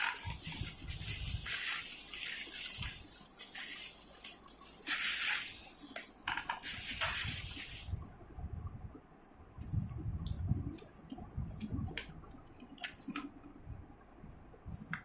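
Crinkling and rustling of parcel packaging being handled, in loud bursts for the first eight seconds or so. Then come scattered light clicks and soft knocks as items are moved about.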